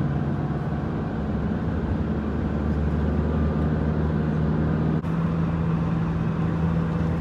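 Steady engine and road drone heard from inside a moving vehicle's cabin. It dips briefly about five seconds in, then carries on with its hum slightly higher.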